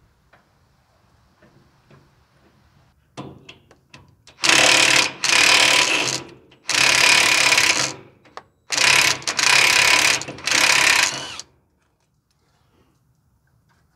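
Cordless impact wrench undoing a bolt, run in five short bursts of about a second each, with a few light knocks just before the first burst.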